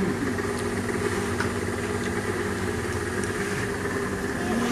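Steady low machine hum with a few faint clicks of dishes and cutlery.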